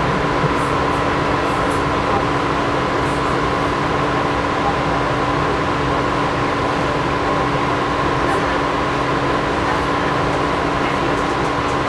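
Steady running noise inside a light rail car moving slowly, a constant rumble carrying a low hum and a higher steady tone from the car's equipment.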